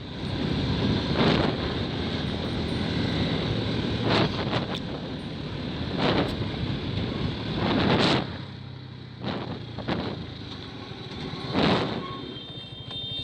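Motor vehicle noise with a steady low engine hum, swelling briefly about seven times, with wind on the microphone.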